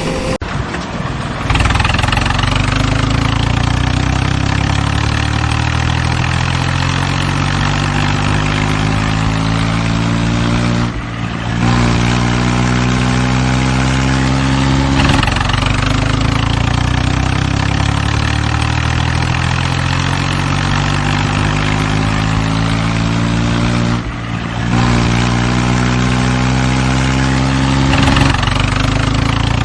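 Construction-vehicle engine sound running steadily, with a stack of slowly shifting tones. It breaks off briefly twice and starts over each time.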